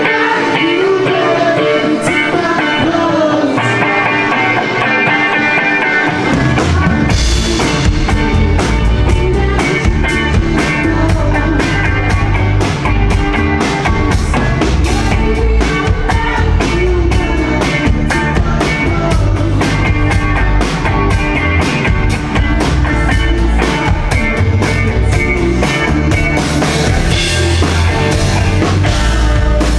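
Rock band music with drums and a singing voice. The bass and full drum kit come in about seven seconds in, after an opening stretch without them.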